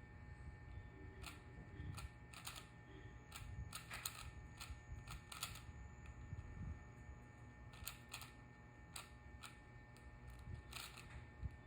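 4x4 Rubik's cube being turned by hand, its plastic layers giving irregular clicks and clacks as moves are made in quick succession.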